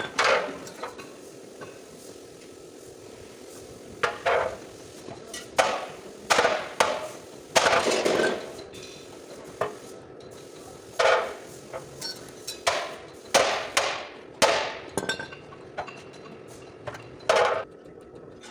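Hammer blows on the damaged sheet-metal front of a Toyota Fortuner, beating out dents during panel repair. The strikes come irregularly, often a second or less apart, with a pause of a few seconds near the start, each one ringing briefly.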